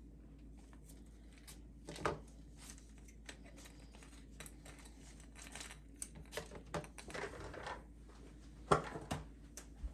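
Faint handling noises of small objects: light clicks and taps with some crinkling. A louder knock about two seconds in, and the loudest knock near the end.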